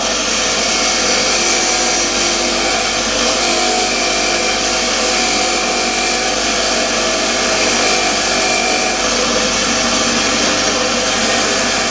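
A 6-inch bench grinder running a wire wheel, with an engine valve held against the spinning wire brush to scrub carbon and rust off it. It makes a loud, steady, noisy whir, with a faint motor hum underneath that holds steady throughout.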